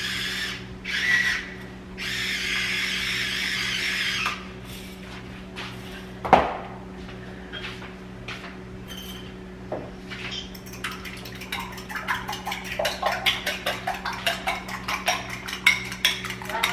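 A fork beating eggs in a glass bowl: a fast run of clinks against the glass starts about ten seconds in and keeps going. Before it there is a hiss for a few seconds and a single sharp knock.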